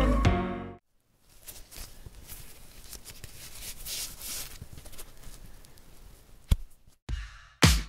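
Music fading out within the first second, then a faint rustling, crackling noise with scattered soft ticks. Near the end come a few sharp knocks.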